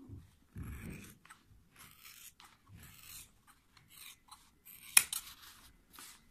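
Scissors snipping through a sheet of rubber inner tube in a series of short cuts, about one every half second to second. A sharp click about five seconds in is the loudest sound.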